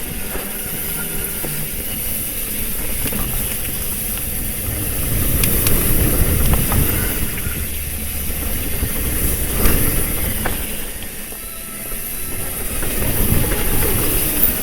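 Trek Fuel EX full-suspension mountain bike rolling over a dirt trail: steady tyre rumble and rattling over roots and rocks, rising and falling in level, with a couple of sharp knocks about five and ten seconds in.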